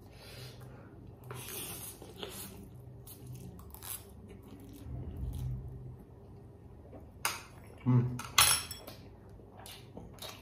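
Steel chopsticks scraping and clinking against a foil-covered platter of noodles, with quieter eating sounds; the loudest are a few sharp clinks about three-quarters of the way through as the chopsticks are set down on the platter.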